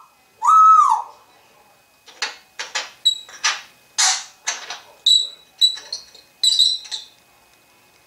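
African grey parrot giving one short arched whistle, then a string of harsh clicks, rasps and short high squeaky notes from about two seconds in to about seven seconds in.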